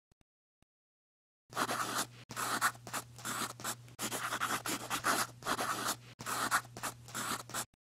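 Marker scratching across a drawing surface in quick, repeated strokes, starting about a second and a half in, with a steady low hum under the strokes.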